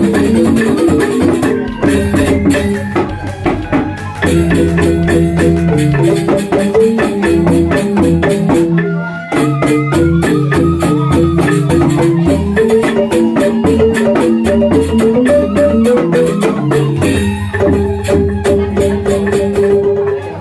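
Balinese rindik music: bamboo xylophones struck rapidly with mallets in fast interlocking patterns over a steady low bass line.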